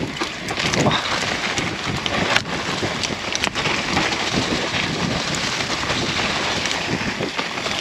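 Mountain bike descending a dirt trail strewn with dry leaves: steady rushing wind on the microphone mixed with tyre and trail noise, and a couple of sharp knocks from the bike over bumps.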